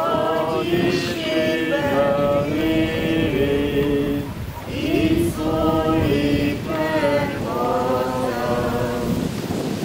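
A group of voices singing a hymn in slow phrases of held notes, with a brief breath break about halfway through.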